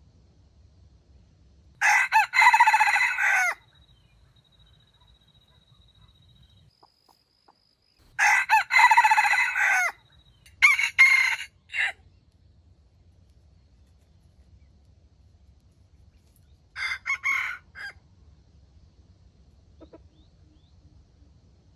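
A rooster crowing: two long crows about six seconds apart, followed by shorter calls a second after the second crow and again about seven seconds later.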